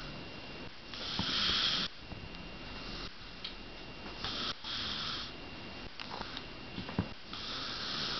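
A sleeping person snoring, with a noisy breath about every three seconds.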